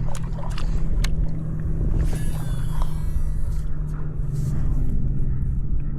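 Wind buffeting the microphone in a steady low rumble, with a steady low hum underneath.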